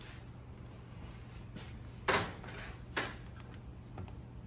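Two short clacks about a second apart, metal parts or a hand tool being handled against a Cummins engine block during assembly, over a steady low hum.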